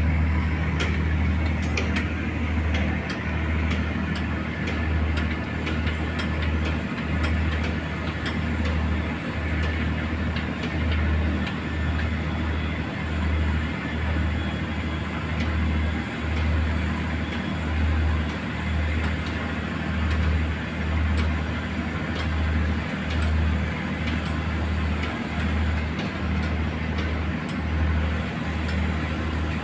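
Fishing boat's engine running steadily, a deep rumble that throbs about once a second, heard from on board as the boat moves out of the harbour.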